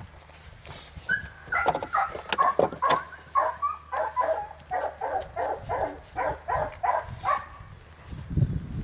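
Malinois puppy barking in a rapid run of high, yipping barks, about three a second, starting about a second in and stopping shortly before the end.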